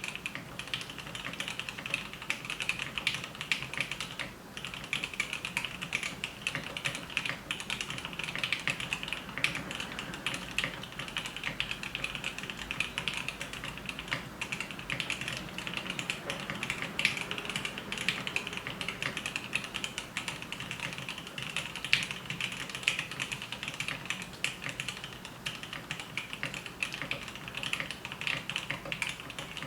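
Fast, continuous typing on a KFE CE mechanical keyboard with lubed and filmed Gateron Ink Black linear switches, a dense patter of keystrokes with a brief pause about four seconds in.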